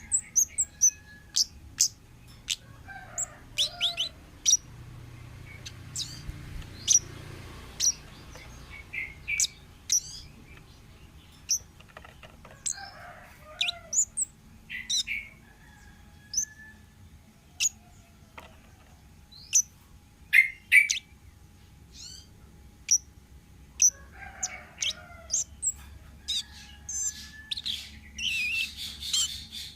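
Wild orange-headed thrush (kemade) calling: a long run of short, sharp, high chirps with quick downward sweeps. A few lower warbled phrases break in, and a denser trill comes near the end.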